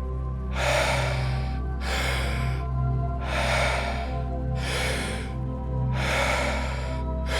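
Deep, forceful breaths, a full inhale then a full exhale, each swelling and fading about every second and a half in a steady rhythm. This is the fast power-breathing phase of the Wim Hof method. Underneath runs a steady ambient music drone.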